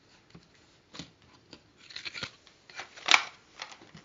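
Light clicks and scrapes of hands handling a View-Master reel as it is changed, with one sharper click about three seconds in.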